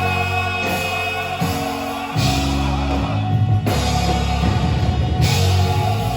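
Live gospel band playing: held bass notes that change every second or so under sustained chords, with drum kit and cymbal washes coming in and out, and some singing.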